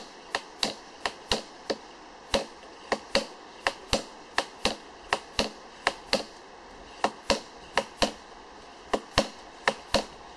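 Drop-weight wood penetrometer being worked by hand: the weight slides down the steel rod and strikes its stop again and again, about two or three sharp knocks a second. Each blow drives the pin further into a decaying log, and the number of drops gauges the wood's density and so how far it has decomposed.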